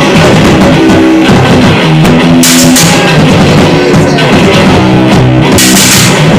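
Loud lo-fi garage noise-rock band playing: guitar and drums in a dense, unbroken wall of sound, with two cymbal crashes, about two and a half seconds in and near the end.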